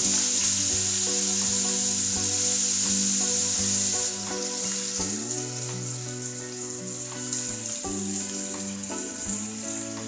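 Chopped bottle gourd sizzling loudly as it goes into hot oil tempered with panch phoron and a dried red chilli in a kadai. The sizzle starts at once and eases after about four seconds as the gourd is spread and stirred by hand.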